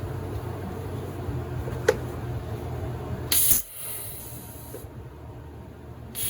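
Two short bursts of high hissing spray over a steady low hum, with a sharp click about two seconds in.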